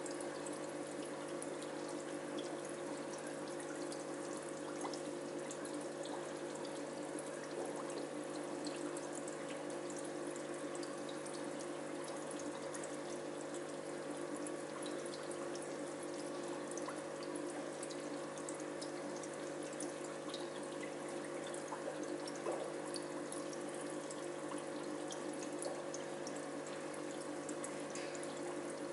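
Aquarium water pump or filter running steadily, a constant hum under trickling, splashing water with small drips.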